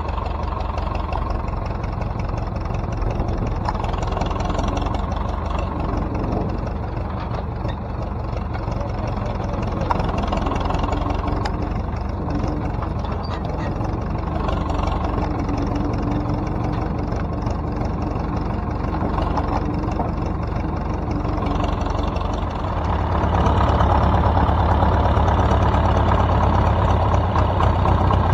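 Ursus C330M tractor's two-cylinder diesel engine running steadily at low revs. About 23 seconds in it grows louder and heavier as the tractor pulls away down the track.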